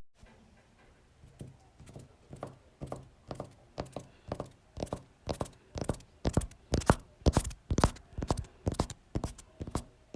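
A run of sharp knocks or taps, about two to three a second, starting about a second in and growing louder.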